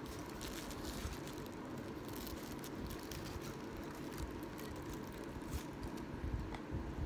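Faint clicks and rustles of a plastic bowl and plastic bag being handled. Near the end come a few low gulps as ramen broth is drunk straight from the tipped bowl.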